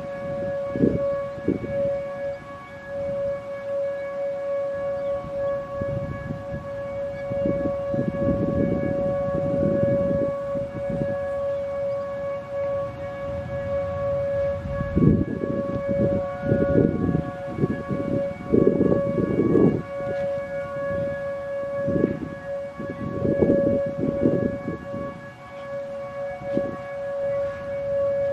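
Federal Signal Modulator 4016 electronic warning siren sounding its Alert signal: a steady dual-tone held at one pitch, without rising or falling. Irregular low rumbles come and go underneath it.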